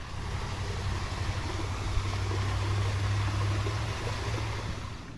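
A motor's low, steady hum that swells toward the middle and fades again, like a vehicle going by, and cuts off abruptly at the end.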